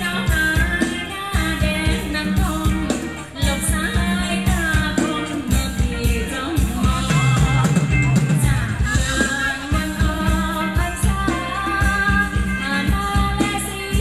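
Amplified Thai ramwong dance song from a live band: a singer's melody over a steady, driving drum beat.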